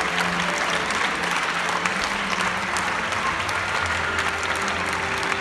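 A crowd applauding steadily, with music playing underneath that holds low notes.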